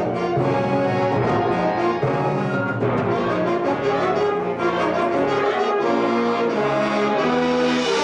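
Concert wind band playing held chords, with trombones and trumpets prominent over clarinets and flutes. The chords change every second or so.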